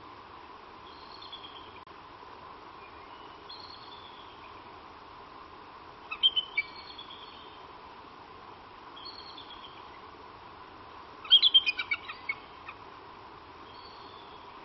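Downy bald eaglet chicks chirping: two short bursts of rapid, high peeps, about six seconds in and again about eleven seconds in. Fainter high bird calls repeat every couple of seconds in between.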